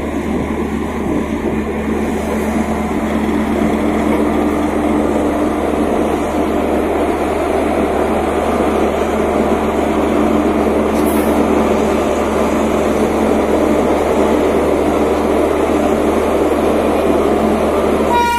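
WAP-7 electric locomotive running with a steady hum and rush that slowly grows a little louder.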